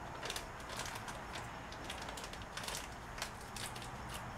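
Faint, irregular rustling and small clicks of hands handling small parts and packaging on a workbench, over a low steady hum.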